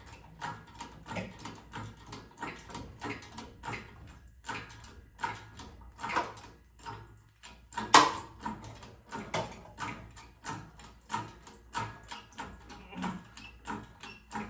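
Repeated knocks and clanks, about two or three a second, with one loud bang about eight seconds in, from working an engine that is stuck on its motor mount up and out of the engine bay.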